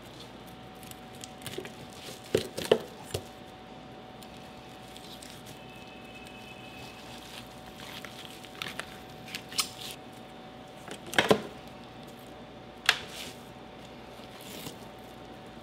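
Kitchen knife cutting through a raw fish fillet on a plastic cutting board, with scattered sharp knocks and scrapes as the blade meets the board. A steady hum sits underneath.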